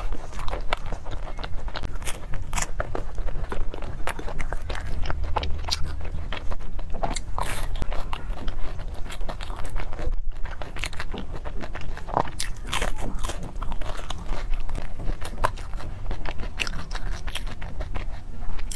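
Close-miked biting and chewing of fried pastries with crisp crusts: irregular crunches and crackles several times a second.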